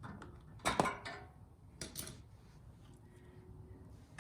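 A few light metallic clicks and clinks of hand tools and small parts during removal of a snowblower's carburetor and its primer line. The loudest comes just under a second in and another about two seconds in.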